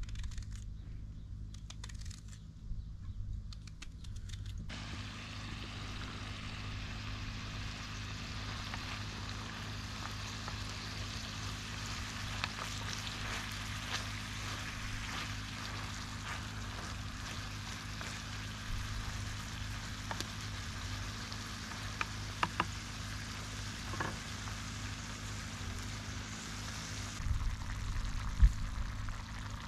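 Steady sizzling of food frying in a hot pan, starting abruptly about five seconds in, with a few light clicks and a knock near the end.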